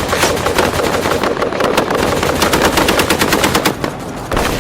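Nerf blasters firing in rapid, overlapping volleys, a dense clatter of shots with a short lull near the end.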